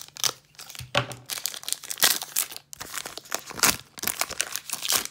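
Wrapper of a 2017 Panini Classics football card hobby pack being torn open and crinkled by hand: a run of irregular crackles and rips.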